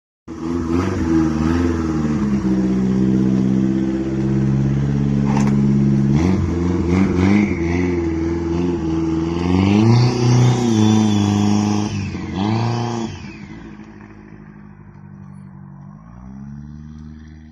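Toyota Paseo's twin-turbo 4E-FTE four-cylinder engine running and being revved, its pitch rising and falling several times, loudest about ten seconds in, then settling to a quieter idle for the last few seconds.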